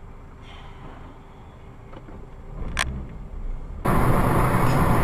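Faint low vehicle rumble as heard from a dashcam inside a moving car, with one short sharp sound near three seconds in. About four seconds in it gives way abruptly to much louder, steady rushing road noise.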